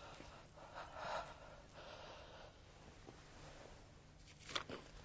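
Faint breathy huffs and gasps from a person, a few soft puffs in the first couple of seconds, with a couple of small clicks near the end.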